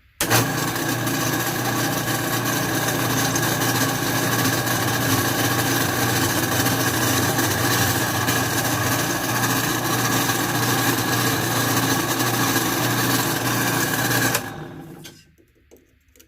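Smithy AT300 metal lathe switched on and running steadily for about fourteen seconds, then switched off near the end and winding down.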